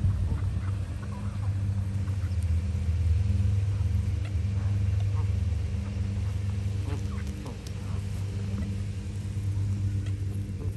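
A steady low mechanical hum, the loudest sound, with a few faint short calls from a grazing flock of Canada geese and ducks.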